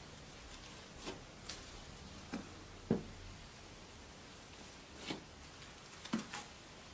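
Slime being squished and poked by hand, giving scattered short soft pops and clicks, about seven of them, the loudest about three seconds in.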